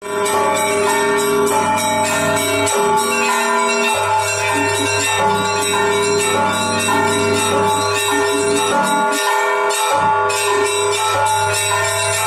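Russian church bells rung together: smaller bells struck in a quick, continuous pattern over deeper bells that keep sounding. A low hum underneath drops out briefly about three seconds in and again near ten seconds.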